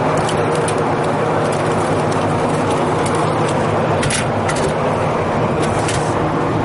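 Steady, loud mechanical humming and noise with no break, with a few brief clicks, the clearest about four seconds in.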